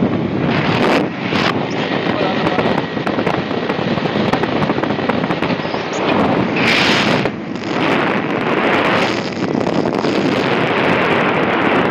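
Wind rushing over the microphone together with the running noise of a moving vehicle, a steady loud rumble and hiss, with a louder rush of hiss about seven seconds in.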